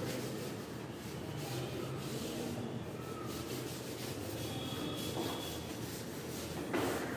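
A chalkboard being wiped clean: repeated scraping strokes against the board's surface, with one louder bump near the end.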